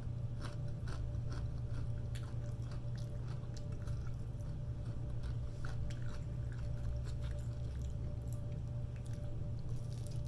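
A person chewing and biting food close to the microphone, with many small wet, crunchy clicks, over a steady low hum.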